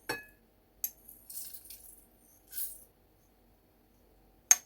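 A teaspoon clinking against the pot as fennel seeds are tipped in with a light rattle, then a sharp clink near the end.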